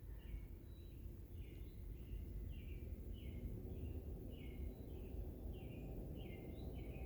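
Bird calling outdoors at dusk: short high chirping notes, repeated about twice a second, over a faint low rumble.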